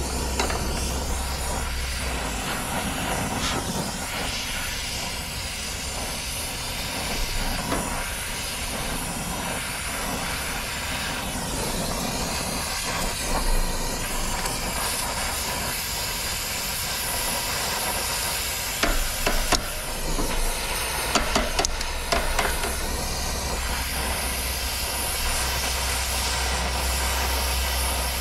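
Oxy-acetylene torch flame hissing steadily as it heats the brazed copper line joints on an AC compressor to unbraze them. A few light metallic clicks about two-thirds of the way in.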